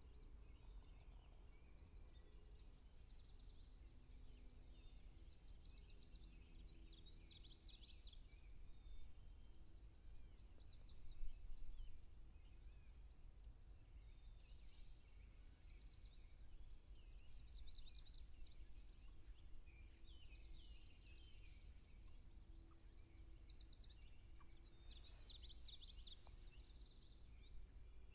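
Faint outdoor ambience: songbirds singing short phrases of rapid notes every few seconds over a low steady rumble.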